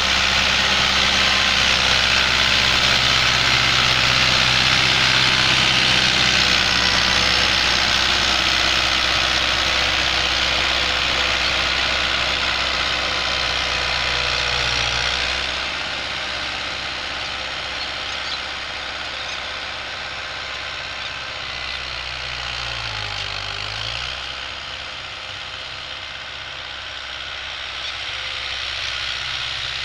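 FIAT 640 tractor's diesel engine running steadily under load while it pulls a cultivator through the soil. It grows fainter about halfway through as the tractor moves off.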